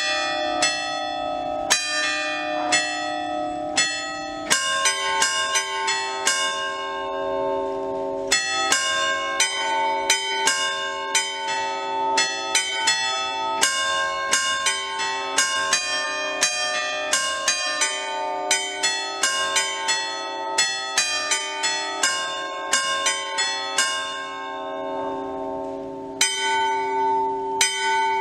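A peal of eight fixed bronze church bells, cast by the Mazzola foundry of Valduggia in 1988, struck while hanging still. The strokes come singly about a second apart at first, then a quick run of overlapping strokes of different pitch follows, then a short pause while the bells ring on, and the strokes start again near the end.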